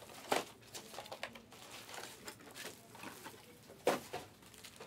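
Sealed trading-card boxes being handled on a table: light cardboard rustling with a couple of sharper taps, one about a third of a second in and one near four seconds.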